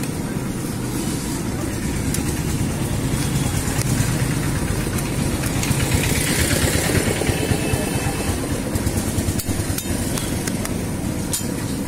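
Steady low rumble of street traffic and running engines, with a brief hiss about halfway through and a few sharp clicks near the end.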